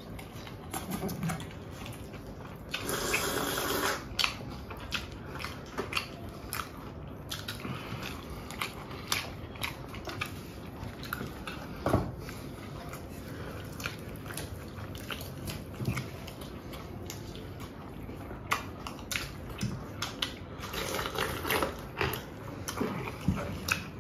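Close-up eating sounds: biting and chewing of food, with many small scattered clicks. There is a sharp knock about halfway through, and two short louder noisy stretches, one a few seconds in and one near the end.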